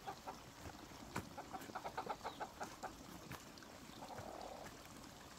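Chickens clucking, a quiet run of short, repeated clucks.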